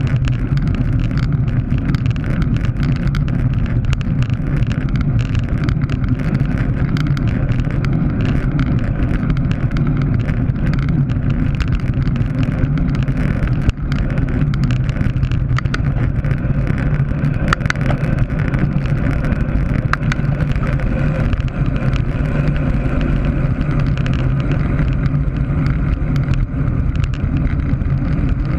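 Wind rushing over a bike-mounted action camera's microphone at racing speed, a loud, steady rumble, mixed with tyre and road noise and frequent small clicks and rattles from the bicycle.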